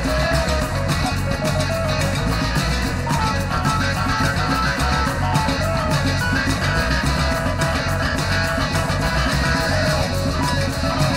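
Guitar-driven rock song from a band recording, playing continuously with a dense, steady beat.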